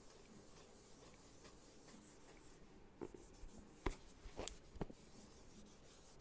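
Fingers scratching the rough, sandpaper-like surface of a camera box close to the microphone: a faint rasp at first, then a few sharper scratches about three to five seconds in.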